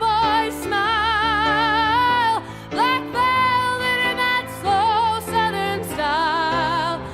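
A woman singing over an instrumental backing, holding long notes with a wide vibrato; one long held note runs from about a second in, and another comes near the end.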